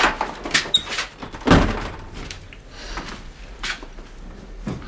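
A door being handled and shut, with a low thud about a second and a half in and several lighter knocks and clicks around it.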